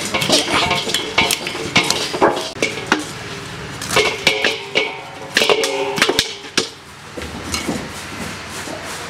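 A curved knife cutting through a whole plucked goose carcass over a large steel basin: irregular scrapes and knocks, with the blade and the bird clinking against the ringing metal bowl. The sounds thin out near the end.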